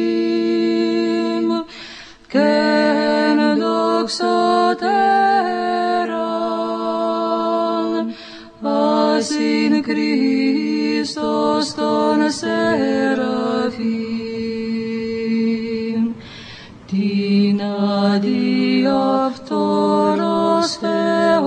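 Unaccompanied Orthodox church chant: voices singing a slow melody over a steady held drone, with three short breaks for breath.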